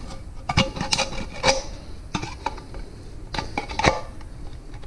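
Tin snips cutting through the thin steel wall of a coffee can: an irregular run of sharp metallic snips and crunches, a few with a short ring from the can.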